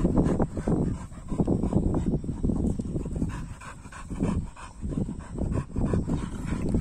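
Pitbull panting hard, with quick rhythmic breaths about two a second.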